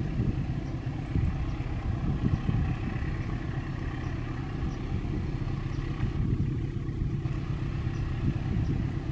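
Diesel-electric locomotive working as it hauls a long container freight train at low speed: a steady, low engine rumble.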